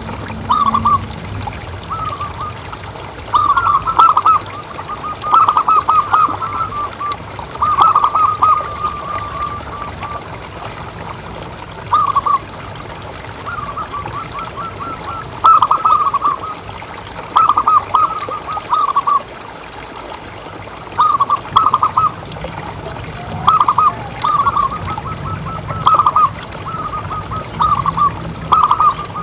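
Zebra doves (perkutut) calling in short repeated phrases of rapid staccato coos, a burst every second or two, over a steady trickle of water.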